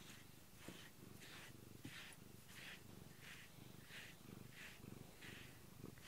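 Domestic cat purring steadily while a grooming brush is drawn through its fur, a soft scratchy swish of the bristles repeating a little less than twice a second.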